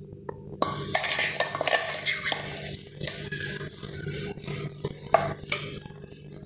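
A steel spoon scraping ground sesame out of a stainless-steel mixer-grinder jar, with metal clinks and scrapes throughout and a few sharper knocks of metal on metal about five seconds in.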